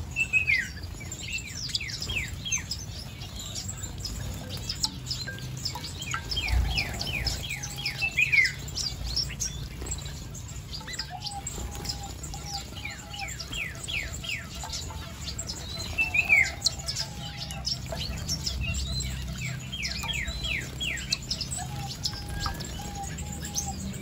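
A flock of small aviary birds, mostly finches, chirping and calling: runs of quick downward-sweeping chirps and strings of lower, repeated short calls, over a low steady background noise.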